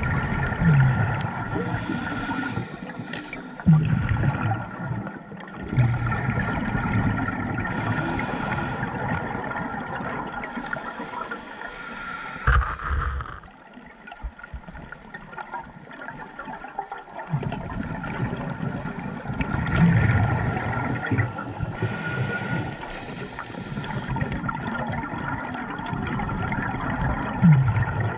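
Scuba diver breathing underwater through a regulator: short hisses of inhaled air and long rumbling, gurgling bursts of exhaled bubbles, a few seconds apart.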